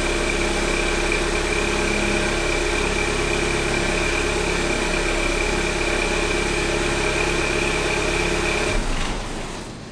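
Exhaust of a VW Golf 1.4 TSI (122 HP) turbocharged four-cylinder idling after a cold start, during the catalytic converter heating phase, with a steady high turbo whine over the exhaust note. Near the end the engine sound cuts off and the level drops away.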